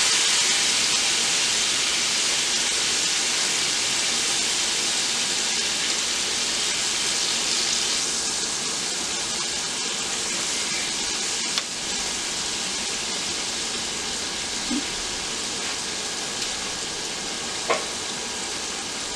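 Flour-breaded chicken fillets sizzling steadily as they shallow-fry in hot oil in a skillet, the sizzle easing a little about halfway through. A single sharp click past the middle.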